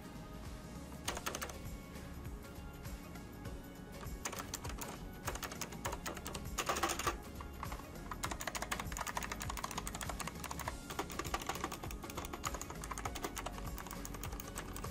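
HP Omen Sequencer mechanical keyboard being typed on, its clicky optical-mechanical blue switches giving a run of rapid clicks in uneven bursts, with the densest flurry about seven seconds in. Background music plays underneath.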